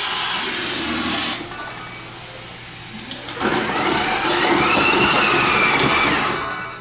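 Liquid nitrogen hissing as it is dispensed into the mixing bowl of a NitroCream nitrogen ice cream machine, with the mixer motor running. The hiss comes in a burst at the start, eases off, then returns louder from about three and a half seconds in, with a whine that rises and then falls in pitch.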